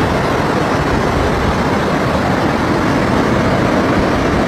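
Floodwater torrenting down a street: a loud, steady rush of churning water.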